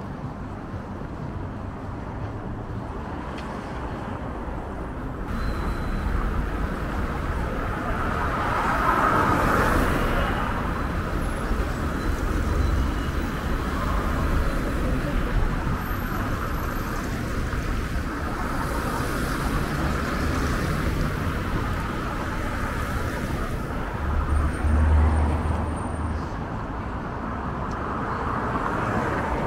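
City street traffic: cars running along the road beside the pavement, a steady hum that swells as a vehicle passes about nine seconds in, with a deeper rumble from another passing vehicle near the end.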